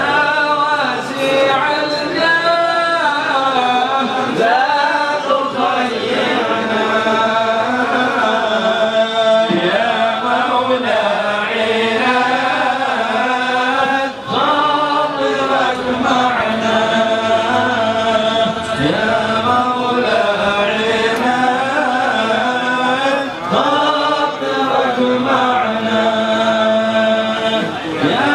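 Men's voices chanting an unaccompanied devotional song (sholawat), held long notes bent in ornamented runs, going on without a break apart from a brief pause about halfway.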